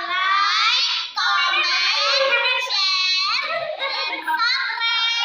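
High-pitched singing voice, the melody sliding up and down in short phrases.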